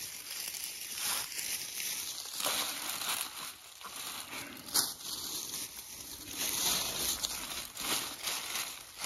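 Dry fallen leaves and forest litter rustling and crunching as a hand scoops and piles them by hand, in a series of irregular rustles.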